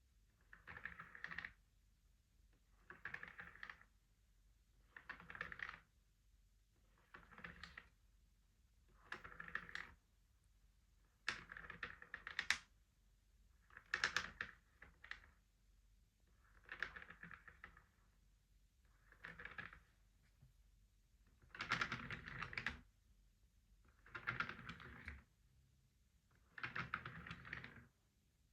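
Quick clicking and clattering on a wooden Shut the Box game set: about twelve bursts of rapid clicks, each about a second long and spaced about two and a half seconds apart, with quiet in between.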